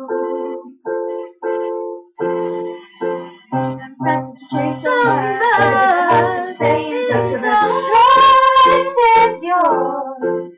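A home-recorded song: short keyboard chords repeat in a steady rhythm, deep bass notes join about two seconds in, and singing comes in over them from about halfway and drops out near the end.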